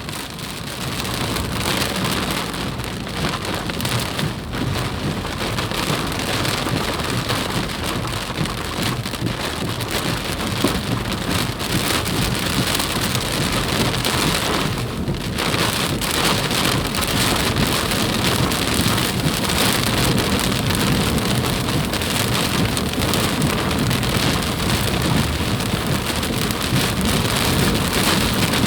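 Flash-flood water rushing, a loud, steady, even rush of water.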